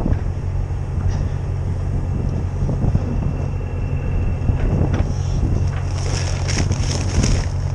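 Heavy diesel truck engine running steadily, with wind buffeting the microphone. A hiss and a few light knocks come in during the last couple of seconds.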